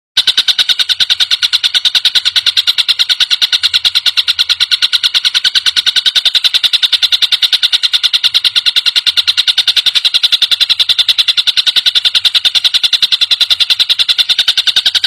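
Tengkek buto (a kingfisher) call recording: a fast, even rattle of harsh, high notes, about seven a second, that runs without a break and cuts off suddenly at the end.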